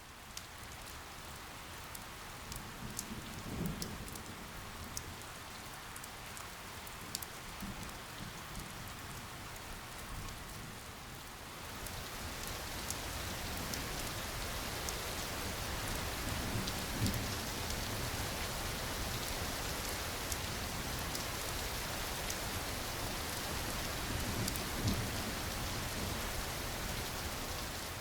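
Steady rain falling, turning heavier about twelve seconds in, with a few brief low rumbles.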